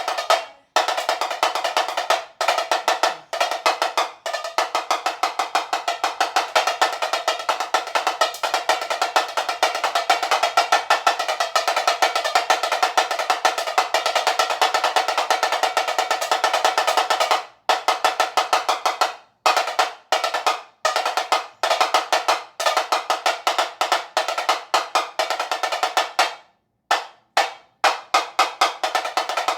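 Batucada, Brazilian samba percussion: fast, dense drumming with crisp snare-like strokes and little bass, breaking off for short pauses a few times, the longest near the end.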